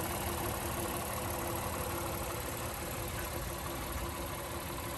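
Honda Ridgeline's V6 engine idling steadily with the hood open.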